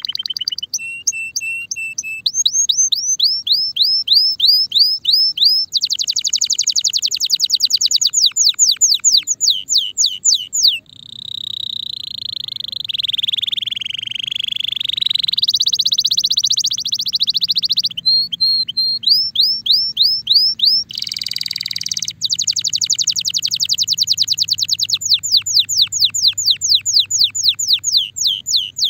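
Timbrado canary in breeding condition singing one long unbroken song. It moves through rapid trills of repeated falling notes and a held warbling note in the middle that dips and rises again, then returns to very fast trills.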